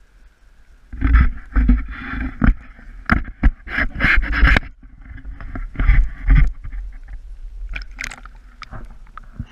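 Pond water splashing and sloshing right at the camera, with knocks and scrapes of handling, as a caught largemouth bass is put back into the shallow water and the camera dips in with it. The loudest, choppiest splashing comes in the first half, then lower sloshing follows.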